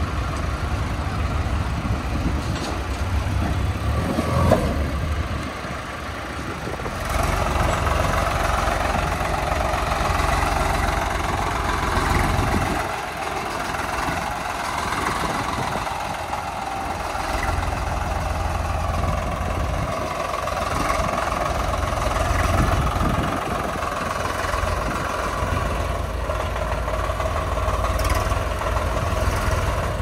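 Diesel engines of a tractor and a JCB 3DX backhoe loader running, a steady drone that changes in tone about seven seconds in. A single sharp knock comes about four and a half seconds in.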